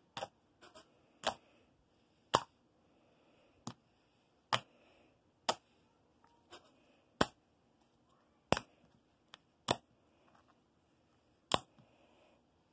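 Homemade white glue-and-lotion slime pressed and poked with fingers, giving sharp popping clicks as air pockets burst, about a dozen irregular pops at roughly one a second.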